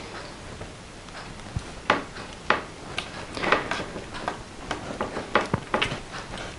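Paper cut-outs being handled on a table: light rustling and a scatter of small, irregular clicks and taps as a paper embellishment is positioned and pressed into place by hand.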